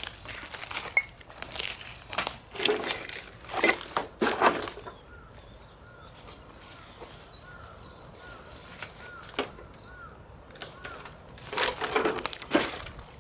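Footsteps crunching on a path through a bamboo grove, stopping for several seconds in the middle and starting again near the end. During the pause a bird's short chirp repeats about twice a second.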